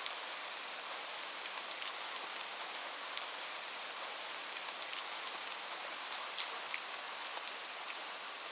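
Light rain falling steadily, a soft even hiss with many scattered drop ticks.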